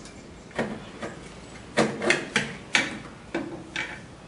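Irregular light metallic clicks and knocks, about eight over four seconds, as metal transmission parts are handled and fitted by hand on the frame of a small homemade helicopter.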